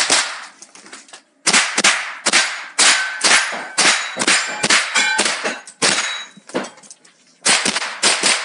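Rapid string of single .22 rimfire rifle shots, about two to three a second, each with a sharp echo in an indoor range, and a pause of about a second near the end. A few shots are followed by a short ringing tone.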